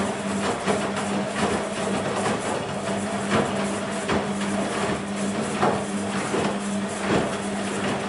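BEKO WMB 51441 front-loading washing machine tumbling a wash load. The drum motor gives a steady hum, and wet laundry drops and water sloshes in the drum in irregular thuds about once or twice a second.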